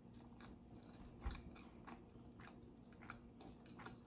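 Faint close-miked chewing of a soft mouthful of rice, beans and stewed beef: soft, wet mouth clicks scattered irregularly, with a dull low bump about a second in.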